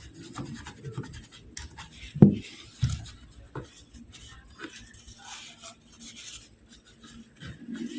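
Soldering iron tip scraping and tapping over corrosion on a laptop motherboard: faint scratching with a few sharp taps, the loudest about two seconds in.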